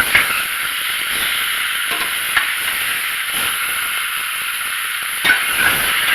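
Pork and vegetables stir-frying in hot grapeseed oil over a high flame: a loud, steady sizzle, with a few sharp knocks about two and a half seconds in and near the end. The unbroken sizzle shows the pan is still hot enough to be sautéing rather than stewing.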